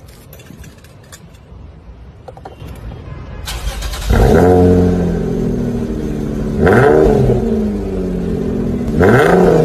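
A few light metal clicks. Then, from about four seconds in, a car engine is revved three times through an exhaust fitted with a clip-on turbo whistle. Each rev rises and falls in pitch, with a whistling tone over the exhaust note.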